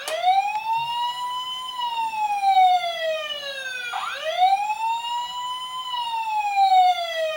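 Toy fire truck's siren wailing in two cycles of about four seconds each: the pitch rises quickly, then falls slowly.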